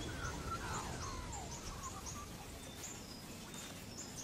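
Wild birds calling: a series of short, high chirps throughout, with lower sliding whistled notes in the first second and a half, over a steady low background noise.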